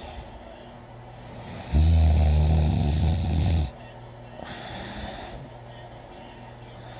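A person snoring loudly: one low snore about two seconds long, starting about two seconds in, followed a little later by a softer, hissing breath.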